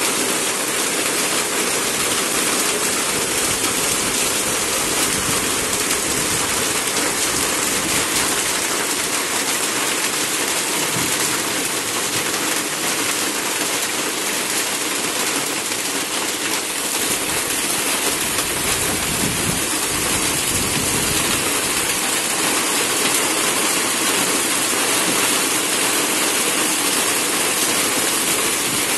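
Heavy rain pouring steadily on trees and a road, driven by wind, as a dense, even hiss. A low rumble swells in for a few seconds past the middle.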